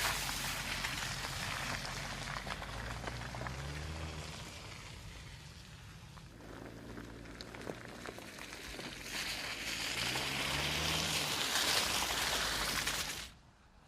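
Audi SQ5 driving off-road, its engine note rising and falling as it revs, over a steady hiss from the tyres and the surface. The sound cuts out abruptly near the end.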